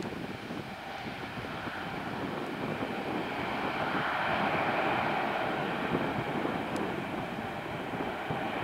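Airbus A321neo's Pratt & Whitney PW1100G geared turbofan engines at takeoff thrust as the jet climbs away just after lift-off: a steady jet engine noise that swells to its loudest about halfway through and then eases slightly.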